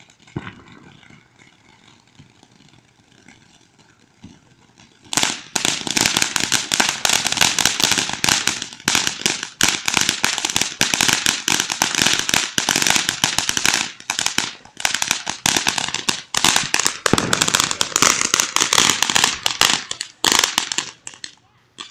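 Firecrackers going off: a single bang, then about five seconds in a long, dense run of rapid pops that lasts around sixteen seconds and ends with a louder bang.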